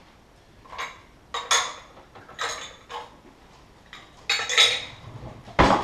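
Kitchenware clattering as it is moved about in a lower kitchen cabinet: a run of irregular clanks and clinks, then a louder thump near the end.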